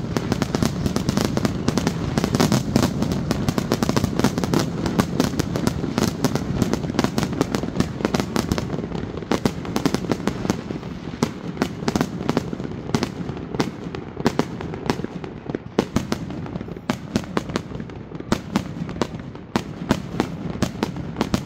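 Aerial fireworks firing and bursting in quick succession, a dense barrage of bangs and crackle that thins after about eight seconds to separate bangs with short gaps between them.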